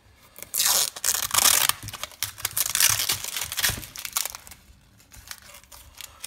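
Packaging tape and the glued paper pattern being peeled and torn off a freshly routed pine board, crinkling and ripping in several pulls, loudest about a second in and stopping after about four seconds.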